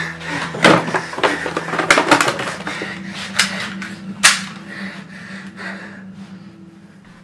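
A scuffle: a quick run of sharp knocks, slaps and thuds over the first four seconds or so, above a steady low hum, then dying away.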